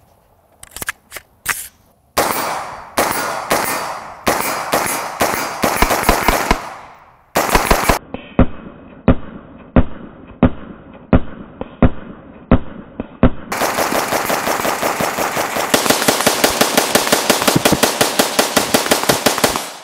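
Stag 15 AR-15 rifle in 5.56 firing a 60-round drum of mostly Wolf steel-case ammunition as fast as the semi-automatic trigger allows, a mag dump. Fast strings of shots come first, then a slower run of single shots at about two a second, then a long fast string near the end.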